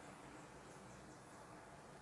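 Near silence: faint steady room noise, with a few faint short high chirps about a second in.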